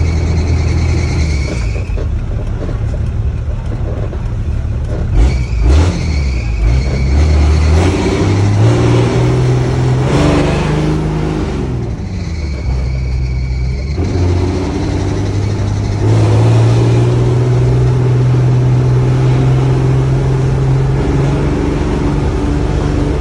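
Motor vehicle engine running while driving. Its pitch climbs about eight seconds in, drops near twelve seconds, then rises again and holds steady, as it accelerates and changes gear. There are a couple of short knocks about five to six seconds in.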